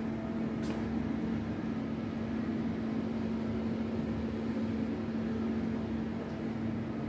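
Steady hum of an air-handling fan in a small tiled bathroom: one constant low tone over a rush of air noise, with a faint click about a second in.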